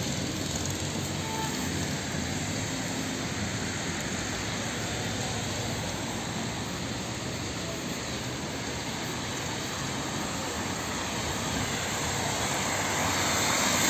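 Steady hiss of traffic on a flooded street, growing louder near the end as a car comes closer through the standing water.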